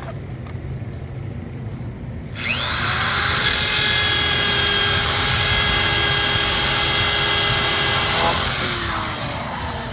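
Handheld high-speed electric power tool spinning up about two and a half seconds in, running with a steady whine for about six seconds, then winding down. It is in use on the car's bodywork, cutting openings for rear brake vents.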